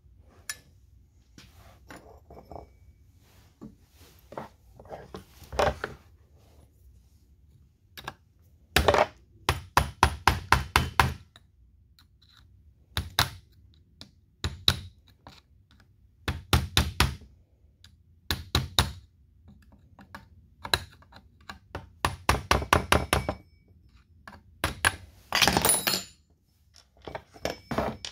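Sharp taps on a new chain tensioner being driven into place in a Husqvarna 350 chainsaw's housing, coming singly and in runs of rapid strikes about five a second.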